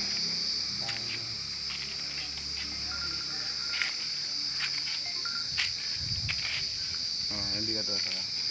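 Crickets chirring in a steady, high-pitched drone, with a few faint clicks over it.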